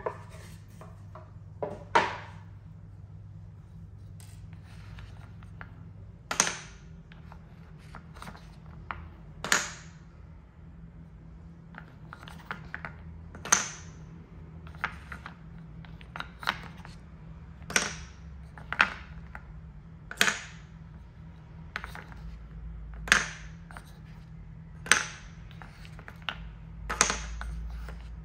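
Solid linden-wood balls knocking against a wooden spoon, a wooden bowl and wooden cups as they are scooped and set in one by one. The result is a sharp wooden clack every second or so at an irregular pace, over a steady low hum.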